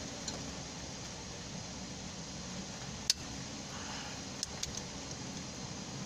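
Steady hiss of rain falling, with one sharp click about three seconds in and a few lighter clicks near the end.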